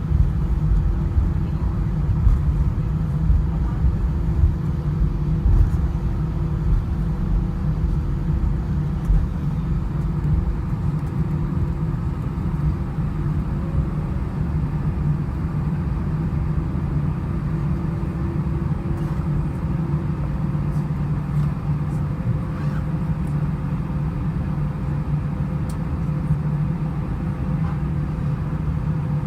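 Jet airliner cabin noise while taxiing after landing: a steady low rumble from the idling engines and rolling aircraft, with a faint steady hum above it.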